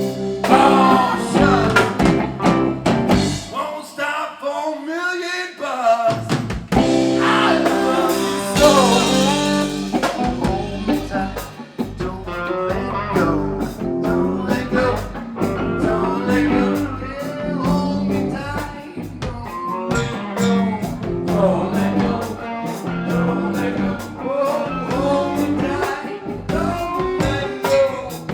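Live rock-and-roll band playing an instrumental passage of a blues-tinged song: electric guitar over bass and drums, the drums coming in steadily about ten seconds in.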